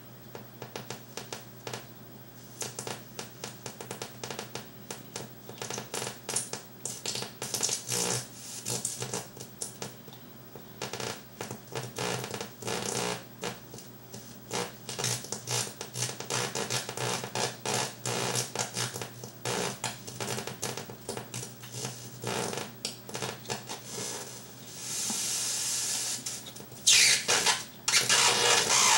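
Homemade battery-powered noise-generator circuit putting out irregular electronic crackles, sputters and squeaks that shift as fingers press on its parts. Near the end it swells into a hiss and then a louder burst of noise.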